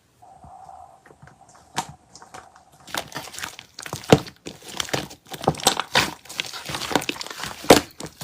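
Slime being squished and pressed by hand. It is quiet at first, then from about three seconds in it crackles and pops quickly and irregularly as air pockets burst.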